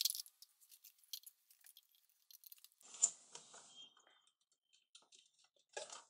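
Handling noise from a plastic mug fitted with nails and wires: scattered light clicks and crackles, with a brief scraping rustle about three seconds in.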